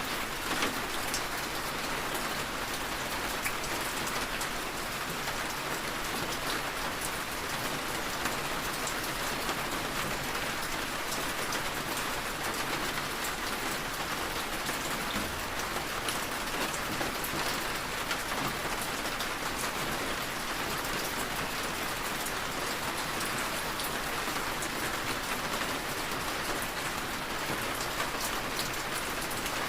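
Steady rain falling on a surface, an even hiss with scattered drop ticks and no change in intensity.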